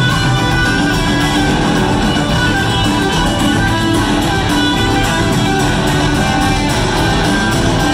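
A live rock band playing an instrumental jam, with electric guitars over drums and bass, continuous and loud.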